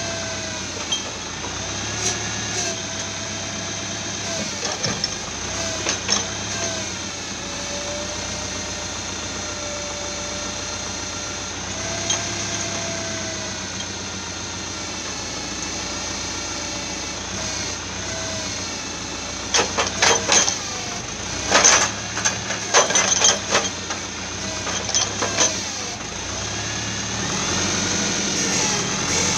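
Tractor's diesel engine running under load, powering the hydraulic crane on a forestry log trailer, its pitch rising and falling as the crane moves. About two-thirds of the way in, a run of sharp wooden knocks and clunks as logs are handled by the grapple.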